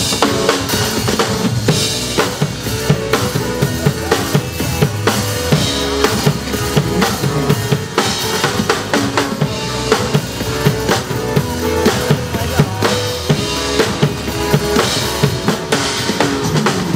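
Drum kit played in a steady beat over a recorded pop song's backing track. The drums come in sharply right at the start.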